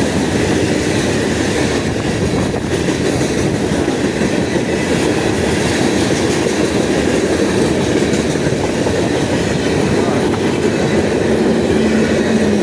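Norfolk Southern freight train's cars rolling past at close range: a loud, steady rumble of steel wheels on the rails.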